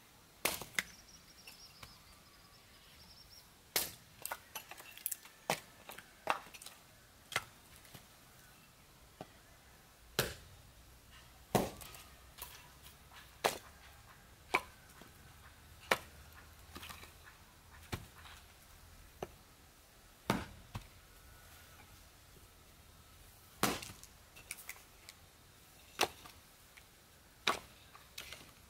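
Sharp wooden chops and knocks, irregular, about one every second or two: a machete splitting wood blocks into firewood on a log, then split pieces of firewood knocking together as they are set down on a stack.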